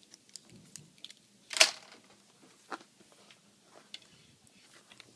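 Plastic laptop parts being handled: scattered light clicks and taps, with one sharp click about one and a half seconds in and a smaller one just under three seconds in.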